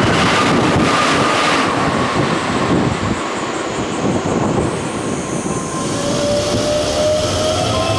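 Keikyu electric train running past on the rails, with a high whine that falls slightly in pitch as the running noise fades and the last cars pull away. About three quarters of the way in, a second, rising whine of another electric train's motors begins.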